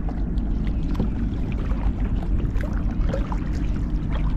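Water lapping and small splashes around a plastic sit-on-top kayak and its paddle, many little ticks of water over a steady low rumble.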